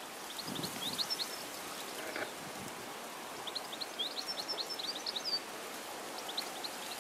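A small songbird singing: two quick runs of short, high chirps, with a third run starting near the end, over a soft steady outdoor hiss.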